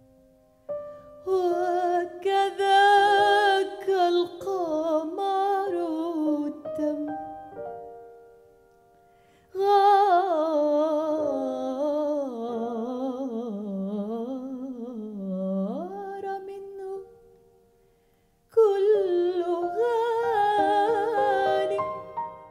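A woman's solo voice singing a Sufi song with a wavering, ornamented melody, accompanied by grand piano holding steady notes beneath it. It comes in three phrases, with two short pauses between them.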